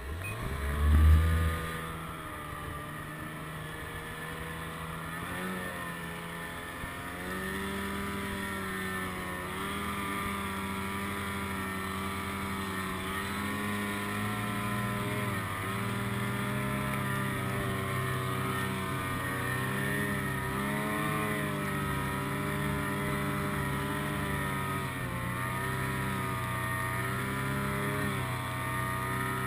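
Snowmobile engine running steadily, its pitch rising and falling as the throttle changes, with a brief loud burst about a second in.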